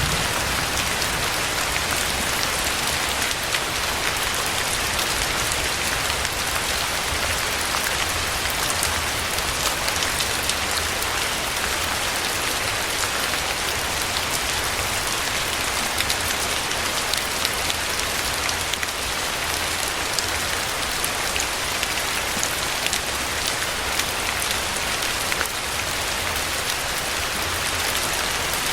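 Steady rain falling on a hard surface, a constant hiss dotted with many sharp individual drop ticks, with no thunder.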